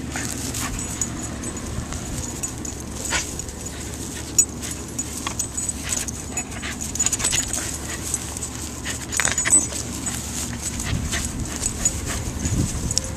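A Welsh Corgi close to the microphone, panting and whimpering, over scattered clicks and rustles.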